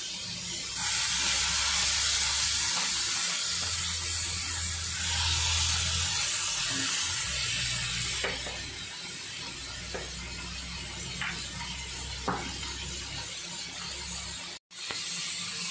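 Marinated chicken pieces frying in hot oil in a frying pan, a steady sizzle. It starts loud about a second in, eases off after about eight seconds, and a few faint clicks follow.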